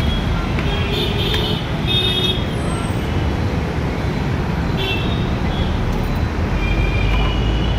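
Steady road traffic rumble with a few short vehicle horn toots, about a second in, around two seconds, near five seconds and toward the end.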